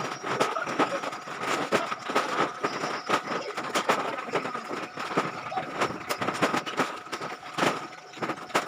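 Sacks of plastic scrap being handled and loaded by hand: dense crinkling and rustling of plastic with many quick sharp knocks, over a faint steady tone.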